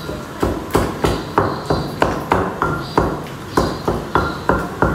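Long wooden pestle pounding roasted, peeled aubergine in a heavy stone mortar, a steady run of dull thuds about three a second, mashing it to a pulp for baingan ka bharta.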